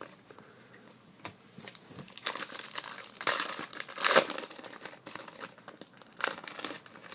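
Crinkling and tearing of a trading card pack's plastic wrapper being opened and handled, in two stretches of rustling, the longer one in the middle.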